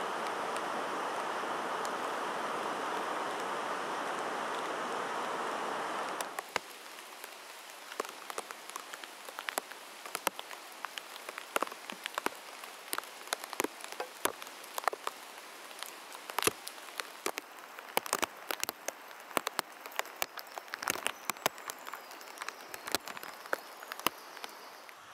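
Rain in a forest: a steady rushing hiss of rain and dripping water that cuts off abruptly about six seconds in, followed by a quieter spell of large raindrops dripping and pattering irregularly on leaves as sharp, scattered ticks.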